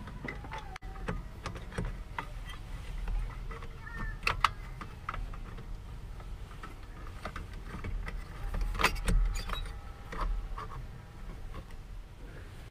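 Hand-work noises from refitting a camper van's roof skylight: scattered clicks and knocks, with a few short squeaks and creaks and a busier flurry of knocks about nine seconds in.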